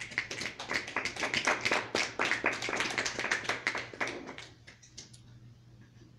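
Audience clapping at the end of a spoken-word poem. The applause dies away about four and a half seconds in, with a few last scattered claps.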